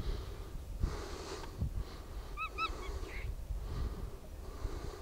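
Soft breathing close to the microphone, a puff of breath about once a second, over a low wind rumble. About halfway through, a bird gives a brief two-note call.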